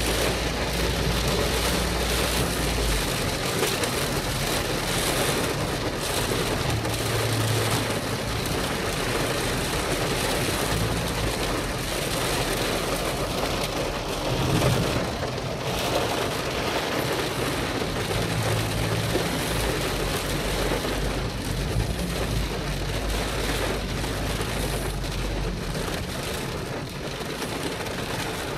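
Heavy rain falling on a car's windshield and body, heard from inside the car, with the steady noise of the car running on a wet highway underneath and a low rumble that comes and goes.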